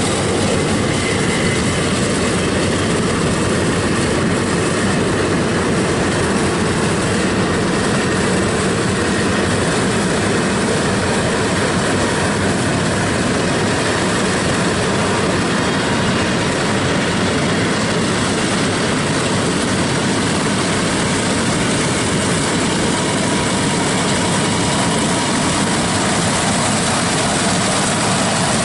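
Yanmar AW82V rice combine harvester running steadily while cutting rice: engine, cutter bar and threshing mechanism together make a dense, even mechanical noise that does not let up.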